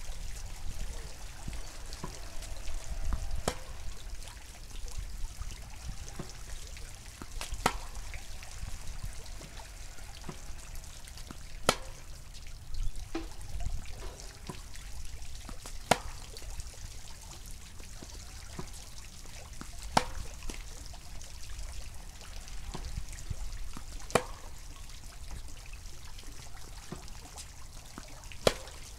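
Tennis ball struck by a Yonex VCORE Tour G racket in a groundstroke rally: sharp pops about every four seconds, with fainter knocks between them, over a low steady rumble.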